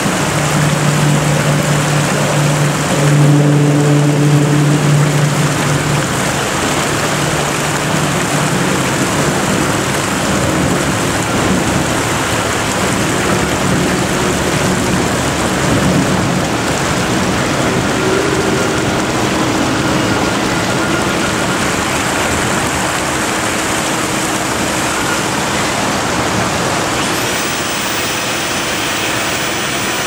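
Water pouring steadily over the overflow weir of a waterworks, a loud, even rush. A low steady hum runs under it for about the first six seconds.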